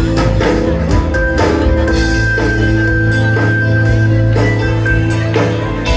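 Live rock band playing an instrumental passage, with a drum beat about once a second and a long held high note through the middle.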